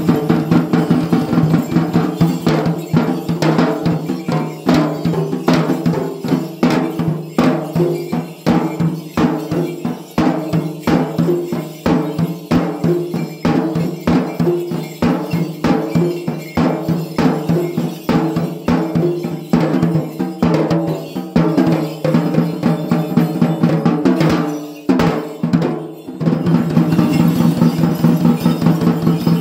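Fast, steady hand drumming on Sri Lankan ritual barrel drums of the dawula type, with a sustained pitched tone and a wavering melodic line underneath. The tone drops out briefly about 25 seconds in while the drumming goes on.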